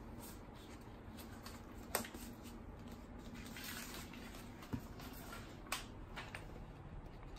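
Faint rustling of crumpled packing paper and cardboard as a cat moves about inside a box, with three short sharp ticks spread through.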